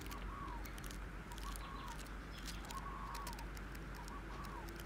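Thin paper pages of a manual being leafed through, a soft rustle with light ticks, while a bird calls again and again in short repeated notes.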